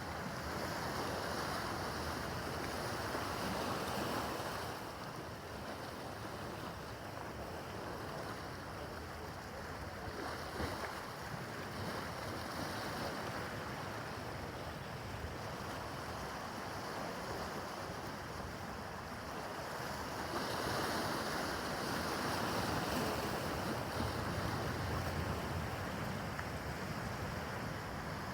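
Rough harbor water washing and splashing, with wind buffeting the microphone; the wash swells louder twice, near the start and about two-thirds of the way through.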